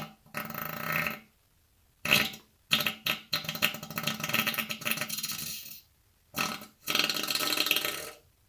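A person farting five times in a row, with a rapid flutter: a brief one, one about a second long, a short one, a long one of about three seconds, and a final one of nearly two seconds near the end.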